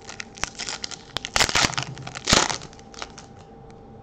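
Foil wrapper of a trading-card pack being torn open and crinkled by hand, a run of crackling rips with the loudest two about one and a half and two and a half seconds in.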